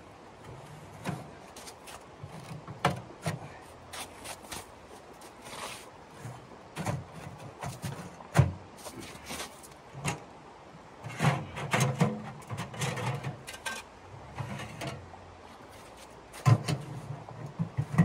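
Irregular handling sounds: scattered knocks and clicks with short bursts of rustling, the sharpest knocks about halfway through and near the end.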